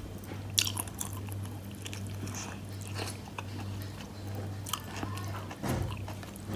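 Close-up mouth sounds of someone chewing and biting into bakso meatballs and rice vermicelli, with scattered wet clicks and smacks. A steady low hum runs underneath.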